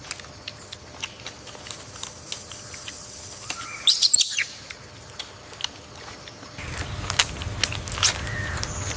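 Scattered light clicks and taps with a few short high chirping calls; the loudest, a shrill burst, comes about four seconds in. A low steady background noise comes up near the end.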